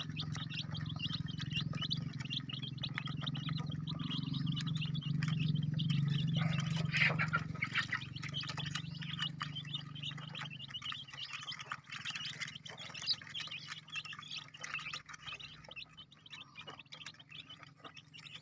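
Kampung chicken chicks peeping, many short high cheeps overlapping without a break, over a steady low hum that fades out after about ten seconds.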